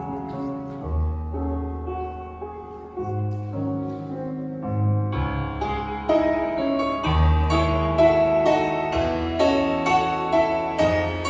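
Piano introduction to a slow song: deep held bass notes under sustained chords, turning into fuller, louder repeated chords about halfway through.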